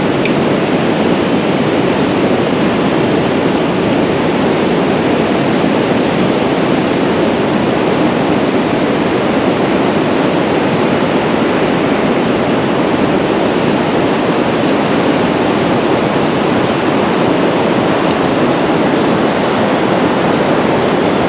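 Steady, even rushing of surf breaking along a flat sandy shore, mixed with wind on the microphone.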